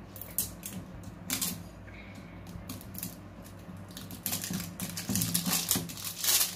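Crinkly plastic wrapper being peeled and torn off a hard plastic LOL Surprise Pets ball, with fingernails clicking and scratching on the shell. The crackling gets busier and louder about four seconds in.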